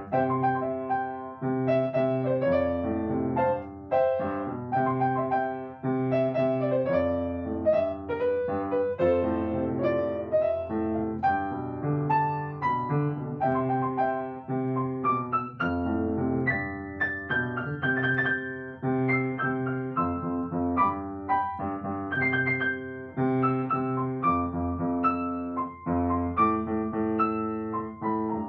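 Solo piano music: a melody line of notes played over held chords and bass notes.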